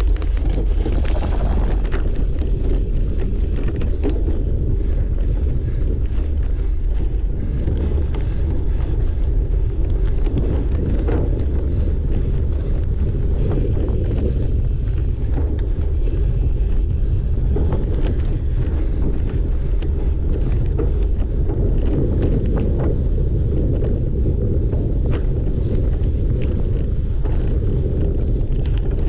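Wind buffeting the camera microphone while riding a cyclocross bike: a steady low rumble, with scattered clicks and rattles throughout.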